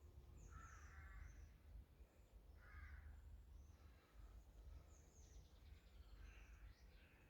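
Faint outdoor birdsong: two short harsh calls, about one and three seconds in, among scattered high chirps from small birds.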